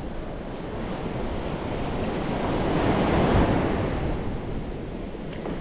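Surf breaking and washing up the beach, a rushing noise that swells to its loudest about midway and then eases, with wind buffeting the microphone.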